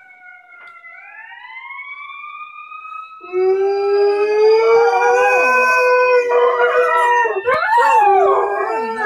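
An emergency vehicle's siren wails and rises in pitch, and about three seconds in a dog joins with a loud, long howl that wavers in pitch, answering the siren.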